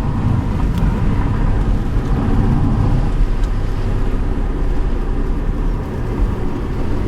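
Car running on the road, heard from inside the cabin: a steady low rumble of engine and tyres.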